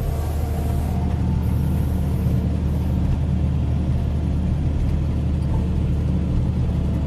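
Caterpillar 140K motor grader's diesel engine running steadily as the machine grades crushed rock, heard from inside the cab as an even low drone.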